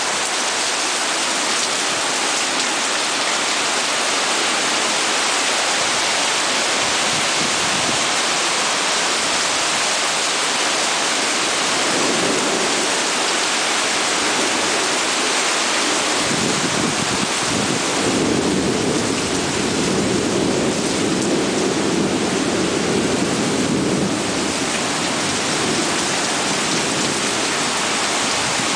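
Heavy rain pouring down in a steady, loud hiss. Past halfway a deeper rumble swells for several seconds, then eases.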